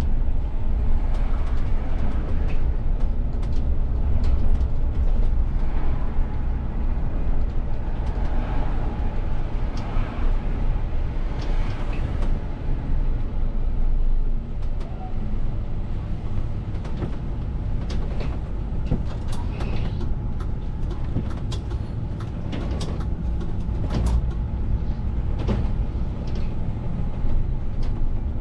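VDL city bus driving through town, heard from the driver's cab: a steady low engine and road rumble, with frequent small clicks and rattles from the cab fittings.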